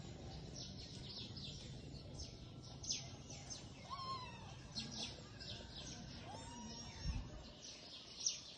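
Small birds chirping over and over in the background, in short high downward-sweeping notes. A kitten gives two faint mews in the middle, and there is a soft low bump near the end.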